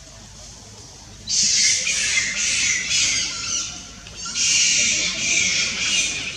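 Harsh, high-pitched screeching animal calls in two bouts of a couple of seconds each. The first starts abruptly about a second in, and the second begins about four seconds in. Each bout pulses a couple of times a second.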